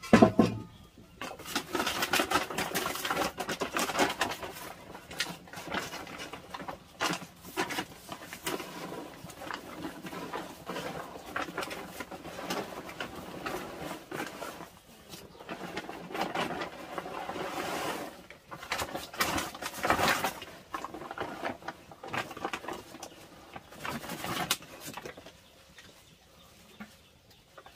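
Farm birds calling, with many short clicks and knocks throughout; the sound thins out near the end.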